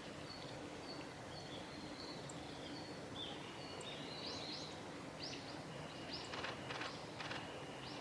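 Yellow-throated buntings giving thin, high contact calls. Faint short notes repeat in the first half, then a handful of sharp chirps come from about halfway. A few soft clicks are heard near the end.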